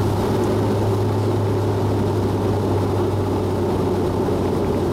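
Bombardier Dash 8 Q400's Pratt & Whitney PW150A turboprop engines and propellers droning steadily, heard from inside the cabin beside the engine, as the aircraft rolls down the runway after touchdown. A steady low hum sits under a higher, steady tone and a constant rush.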